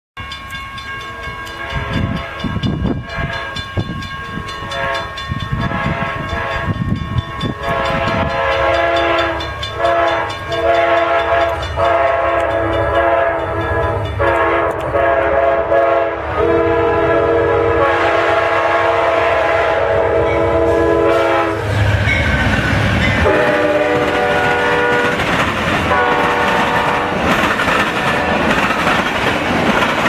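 Amtrak Silver Star locomotive's multi-chime air horn giving a horn show: many short and long blasts, with one long held blast about two-thirds of the way in. Under it the train's rumble builds, and in the last third the passenger cars roll past with wheel clatter while two more short blasts sound.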